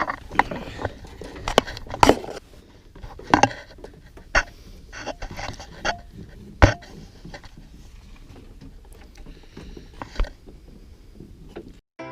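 Irregular knocks, clicks and scrapes of tools and gear being handled and set down, with one sharp knock about halfway through. The sounds thin out over the second half and cut off just before the end.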